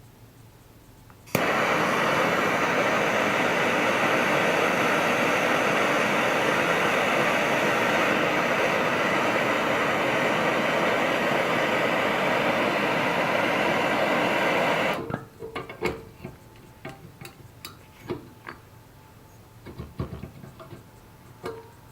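An electric power tool starts abruptly and runs steadily for about thirteen seconds, then shuts off and dies away. A few small clicks and knocks follow.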